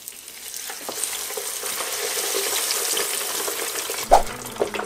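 Crinkle-cut fries sizzling in hot oil in an electric deep fryer, the steady hiss building about half a second in as the basket goes down into the oil. Near the end a clunk as the fryer lid is shut, then a smaller click.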